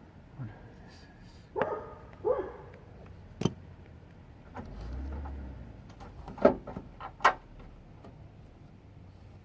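A few sharp knocks and clicks, the loudest events, as parts are fitted on a car bumper by hand. Two short dog barks come about two seconds in.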